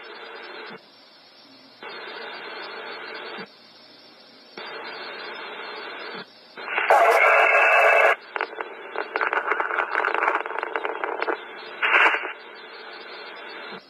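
Police scanner radio channel with open-carrier hiss keying on and off several times, a loud burst of static about seven seconds in, then a few seconds of crackling, broken transmission.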